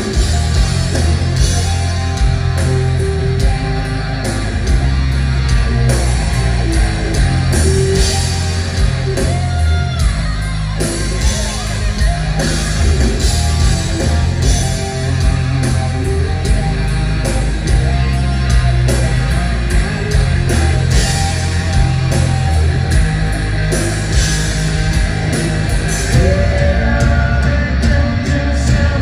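Hard-rock band playing live and loud: distorted electric guitars over bass and drums, with singing toward the end. Recorded from the audience in a concert hall.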